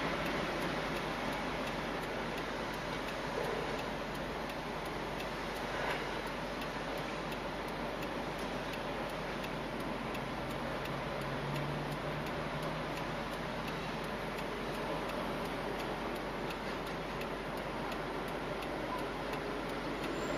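Steady, even ticking, about two ticks a second, over the low hum inside a car idling in traffic.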